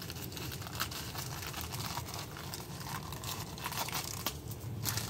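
Thin plastic packaging bag crinkling and tearing as it is ripped open by hand, a rapid run of crackles.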